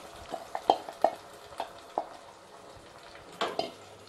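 Wooden spatula knocking and scraping against a stainless steel kadai while stirring a thick mashed potato and tomato mixture into fried onions, over a faint sizzle of frying. Irregular knocks through the first two seconds, a short pause, then a few more about three and a half seconds in.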